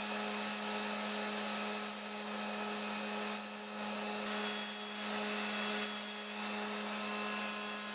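Shopline Jet 8-inch bench grinder running steadily with its paper sharpening wheel spinning, a constant motor hum. The tip of a small steel broadhead blade held against the wheel adds a rubbing hiss that swells several times.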